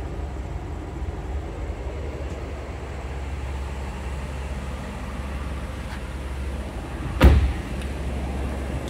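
A car's rear door being shut once about seven seconds in: a single heavy thud over a steady low rumble.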